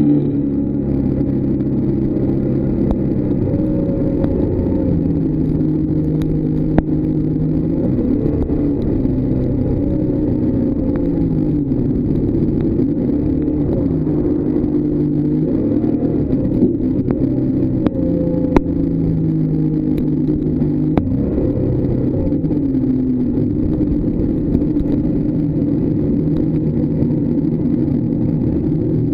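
Jet boat's engine running hard, its pitch shifting up and down with the throttle through the bends, with a few short sharp ticks.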